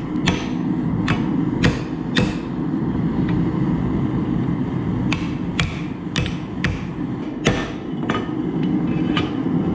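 Hammer blows on hot steel at the anvil: about a dozen irregular strikes, with a pause in the middle. Underneath runs the steady rushing of the forge.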